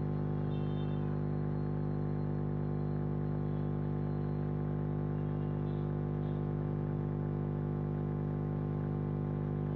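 Steady electrical hum with many evenly spaced overtones, holding one pitch and level throughout.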